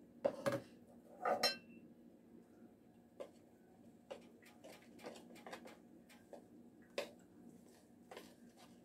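A utensil stirring dough in a ceramic mixing bowl, with scattered light clicks as it strikes the bowl. Two louder knocks come in the first second and a half, as a plastic measuring cup is set aside.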